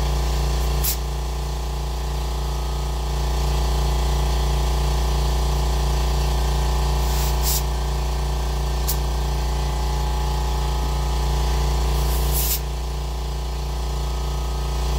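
Electric air compressor running steadily with a low hum while it inflates an ATV tire's inner tube through a hose on the valve stem. Four short hisses of air at the valve chuck come about a second in, twice around seven to nine seconds, and again near twelve and a half seconds.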